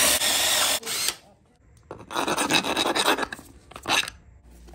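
Cordless drill boring holes through a metal wheel rim. It runs steadily until about a second in, stops, then grinds again in a rougher, stuttering stretch from about two to four seconds in.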